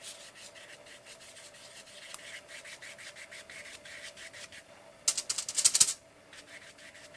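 Flat paintbrush rubbing white acrylic paint onto collaged paper in quick, light, scratchy strokes, about three or four a second. Near the end comes a louder, faster second of scrubbing as the brush is worked in the aluminium-foil tray of paint.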